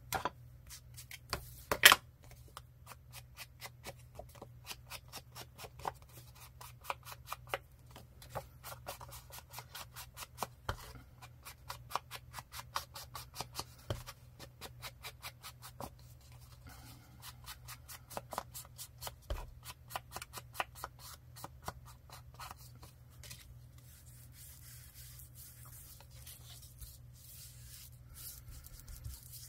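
Inking paper edges: an ink applicator dabbed and rubbed against paper in quick repeated taps, several a second, with a sharp click about two seconds in. The taps turn to softer rubbing near the end.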